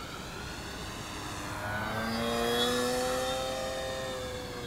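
Electric motor and propeller of an OMP Super Decathlon 55-inch RC plane whining as it flies past. The whine builds to its loudest about two and a half seconds in, then fades with its pitch dropping slightly near the end.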